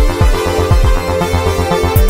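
Electronic music generated in real time by the 4klang software synthesizer: a steady beat of synth kick drums that drop in pitch, under sustained synth chords.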